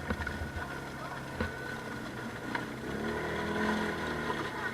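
ATV engine running, its pitch rising and falling again in the second half as it is revved, with a couple of sharp knocks along the way.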